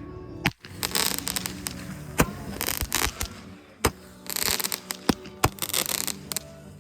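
Handheld Roman candles firing: a sharp pop every second or two, about five in all, with stretches of fizzing crackle between the shots.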